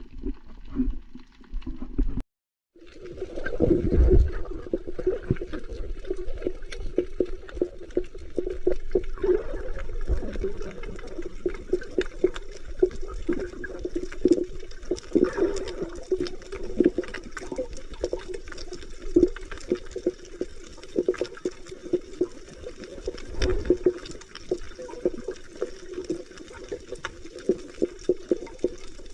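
Muffled water sloshing and bubbling, with many small sharp clicks scattered throughout.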